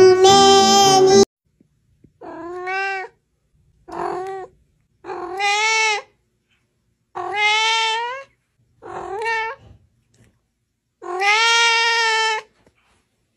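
A young cat meowing six times in a row, each meow rising and then falling in pitch, with short silences between; the last meow is the longest.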